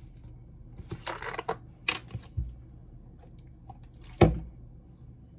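Small handling noises: a few short rustles and light clicks, then one sharp knock about four seconds in, like an object being set down.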